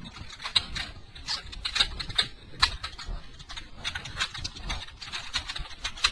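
Parts of a G1 Transformers Ratchet toy clicking and rattling irregularly as it is handled and transformed into vehicle mode, over a low handling rumble.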